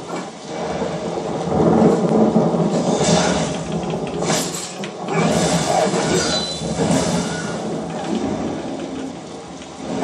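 Video game combat audio of a fight with a wolf: several sharp weapon and spell hits over the steady background of an in-game thunderstorm.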